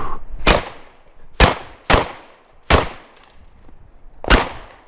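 Five loud shotgun shots at irregular intervals, each with a short echoing tail.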